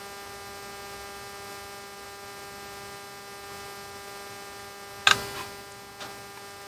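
Steady electrical hum with a thin higher tone above it. A sharp, brief click about five seconds in and a much fainter one about a second later.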